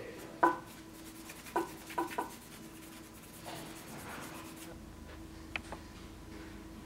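A few sharp metallic knocks and clicks as a small steel knife fitting is handled at a vise, with light rubbing between them. Later comes a single lighter, higher clink of the two polished steel fittings touching in the hand. A faint steady hum runs underneath.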